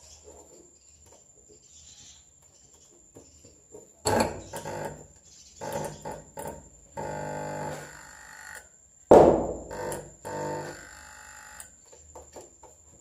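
Keyboard-like musical notes: after a few quiet seconds, some sharply struck notes that die away and one note held steady for over a second.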